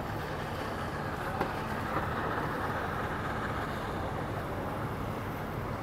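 Engine running steadily, a low hum over background noise, with two faint clicks about one and a half and two seconds in.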